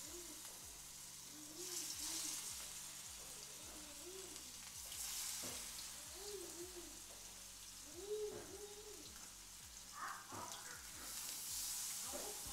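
Marinated fish pieces frying in hot oil in a pan: a soft sizzle that swells and eases several times.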